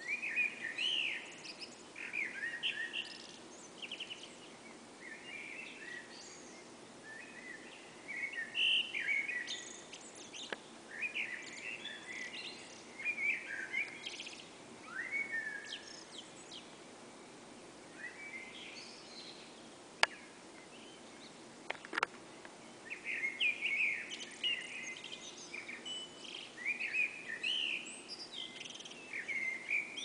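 Several songbirds singing a dawn chorus, short varied phrases overlapping one another, over a steady low background noise. Two sharp clicks about two-thirds of the way through.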